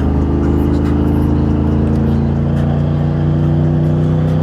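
Pickup truck's 6.0-litre V8 engine running under way, heard from inside the cab, its pitch slowly climbing with a change in tone about two seconds in.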